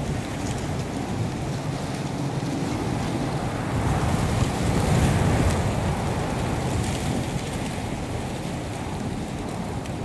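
Wind blowing, a steady rushing that swells in a gust about four seconds in and eases off again.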